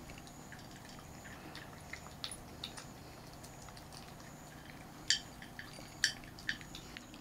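Cats eating dry kibble from their bowls: faint crunching with scattered small clicks of kibble and teeth against the bowls, two sharper clicks about five and six seconds in, over a low steady hum.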